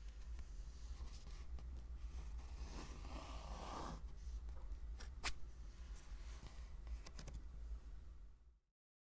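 Pen scratching on paper in handwriting strokes, over a low steady hum. There are a few sharp taps, and the sound cuts off abruptly near the end.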